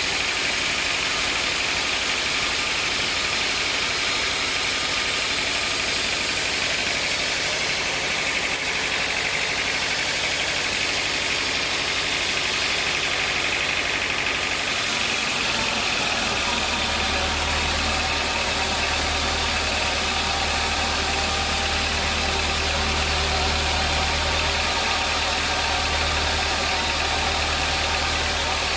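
Sawmill machinery running steadily with a loud, even mechanical noise. A deep low drone joins it a little past halfway.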